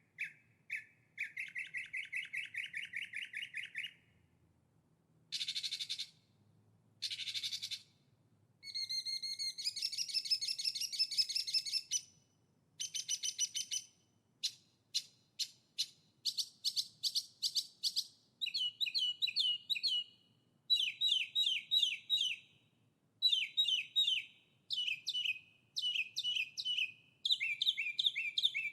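Songbird singing in phrases of rapid, evenly repeated trilled notes, each phrase lasting from under a second to about three seconds, with short pauses between them. The pitch of the phrases shifts from lower to higher and back.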